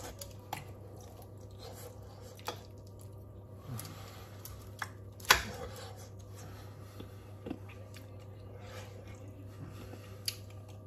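Two metal forks working through baked chicken pieces and potatoes in a foil tray: soft squishing and scraping with a few sharp clicks of metal on foil or fork on fork, the loudest a little past five seconds in. A steady low hum runs underneath.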